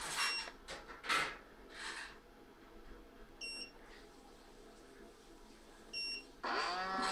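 Robot vacuum cleaner beeping three times, about three seconds apart, in answer to remote-control button presses, then its motors and brushes starting up with a whine near the end as it begins a cleaning run. A few short rustling noises come in the first two seconds.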